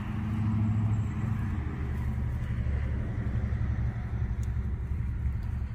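An engine running nearby, a deep steady rumble.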